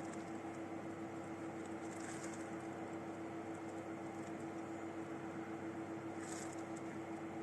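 A steady hum at one pitch over a constant hiss, with a faint brief rustle about six seconds in.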